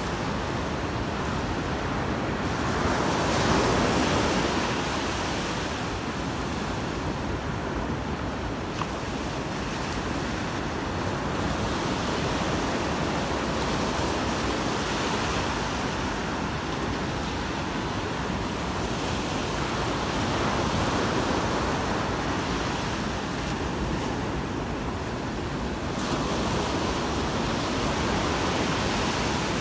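Surf breaking and washing up a sandy beach: a steady rush of waves that swells louder as sets come in, about three seconds in and again near the end.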